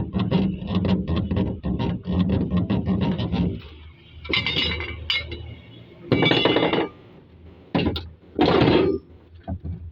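Metal shock absorbers being handled and worked by hand: a quick run of clinks and knocks, then several loud, short clanking, scraping bursts.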